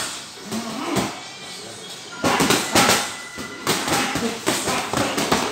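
Boxing gloves landing in a sparring exchange: a run of sharp slaps and thuds from punches, thickest in a quick flurry about two to three and a half seconds in.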